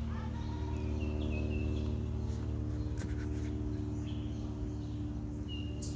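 A steady low mechanical hum, with a few short high bird chirps about a second in and again near the end, and a couple of faint clicks around halfway.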